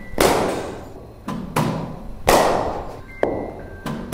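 A series of heavy thuds, about six in four seconds at uneven spacing, each with a short echo trailing off after it.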